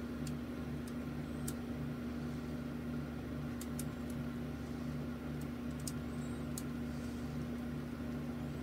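Steady low machine hum, like a fan or appliance running, with a lower tone that wavers on and off and a few faint ticks.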